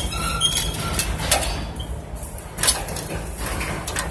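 Ironwork on a steel rebar cage: short metal squeaks in the first second, then scattered knocks and clinks of metal, over a steady low rumble.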